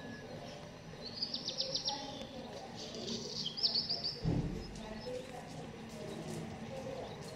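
A small songbird singing short, fast trilled phrases, three in quick succession, over a low background haze; a brief low thump comes about four seconds in.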